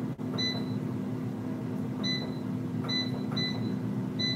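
Air fryer's touch-panel control beeping as its buttons are pressed to set the cooking time: five short, high beeps, unevenly spaced, over a steady low hum.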